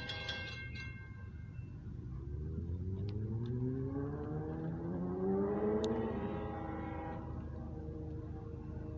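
Diesel freight locomotive's engine revving up, its pitch climbing over several seconds and peaking about two-thirds of the way through before easing. A grade-crossing warning bell rings at the start and fades out about a second in.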